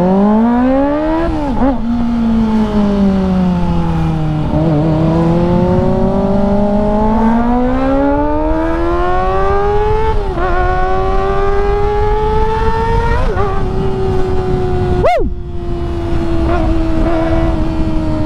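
Kawasaki ZX-25R's 250 cc inline-four through an IXIL aftermarket exhaust with its dB killer fitted, revving hard while riding: the pitch climbs and drops sharply at each gear change, several times, then holds and sinks slowly near the end.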